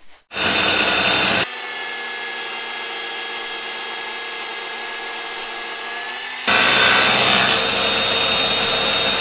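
A homemade table saw running while a small wooden block is pushed across the blade through an angled jig, cutting a shallow groove. The blade height is unchanged while the jig angle is varied between passes. The sound changes abruptly about a second and a half in and again about six and a half seconds in.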